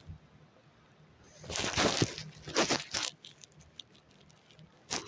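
Rustling, crinkling noise in a few short bursts, the longest lasting about two seconds, with another brief burst near the end.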